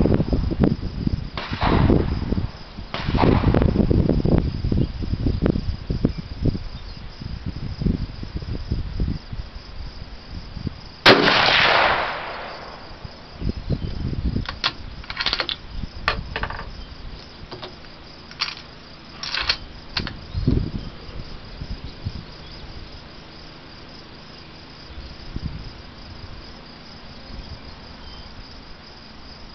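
A single loud rifle shot about eleven seconds in, with an echoing tail, followed by a few fainter sharp cracks. Low rumbling thumps come before it, and insects chirp steadily throughout.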